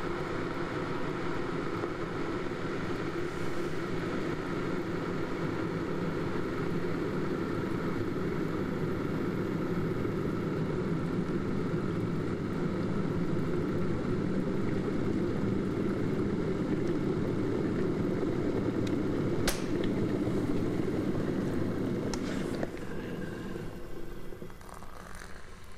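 Electric kettle coming to the boil with a steady rumbling, switching off with a single click about three-quarters of the way through; the boiling then dies away over a few seconds.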